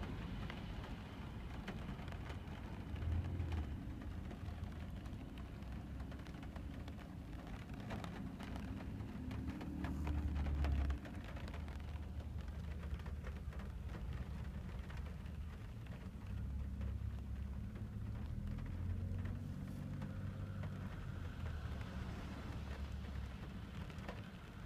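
Rain pattering on a car's roof and windows, heard from inside the moving car, over a steady low rumble of engine and road noise. About ten seconds in the low rumble swells louder, then cuts off suddenly.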